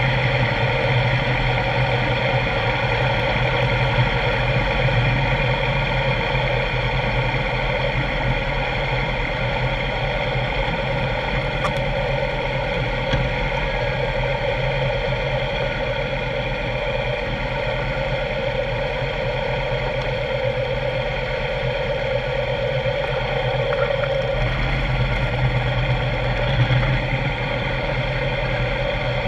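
Motorcycle engine running steadily at low speed through slow rally traffic, with an even, unchanging engine note.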